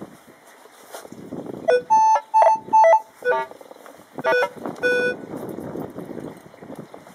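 Minelab E-Trac metal detector with a Detech Ultimate coil giving a run of short target beeps as the coil passes over a small silver target, the beeps switching between a lower and a higher tone. They come in quick clusters from just under two seconds in to about five seconds in.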